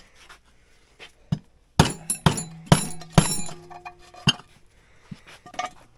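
Hammer tapping on metal, about eight sharp strikes, most of them between one and three and a half seconds in, each with a brief metallic ring; typical of seating a 6205-2RS ball bearing into a snowmobile chain case.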